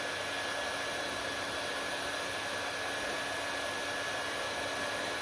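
Hair dryer running steadily: an even rush of blown air with a constant high whine from its motor.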